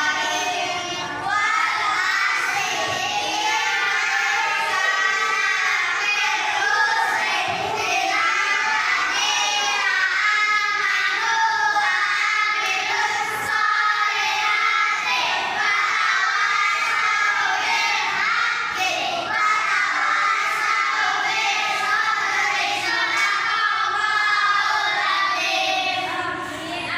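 Many children's high voices singing and shouting together, a steady overlapping din with no clear words.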